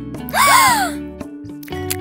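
Light children's cartoon background music with sustained notes and a ticking beat, interrupted about a third of a second in by a loud half-second cartoon sound effect: several quick pitch sweeps that rise and fall over a hiss.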